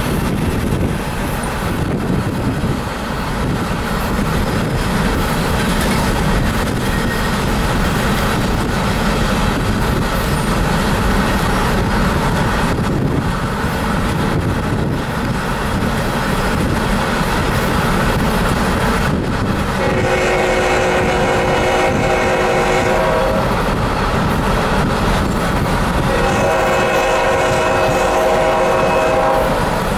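Norfolk Southern diesel locomotives of a coal train running past with a steady rumble, and the locomotive horn sounding two long chord blasts of about three seconds each, the first about two-thirds of the way in and the second near the end.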